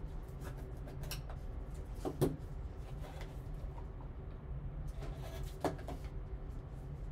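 Small cardboard box being opened by gloved hands: the lid lifted off and the stack of cards slid out, with soft handling sounds and two brief knocks, about two seconds in and near six seconds, over a steady low hum.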